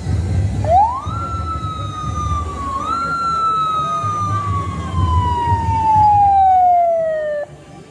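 Police patrol pickup's siren wailing: a quick rise about a second in, a slow fall, a second quick rise near three seconds, then a long slow fall until it cuts off suddenly near the end. A low rumble runs underneath.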